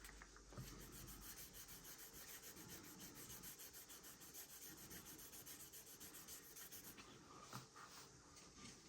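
Faint, steady rubbing of a wet 3000-grit sanding sponge worked back and forth with gentle pressure over the painted body of a scale model car, in quick, even strokes.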